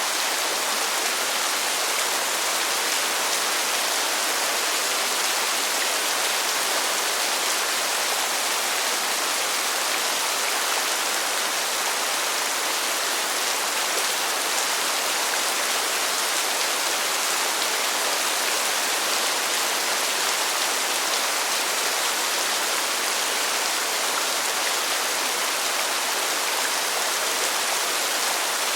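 Heavy rain falling in a steady downpour, an even hiss that does not change.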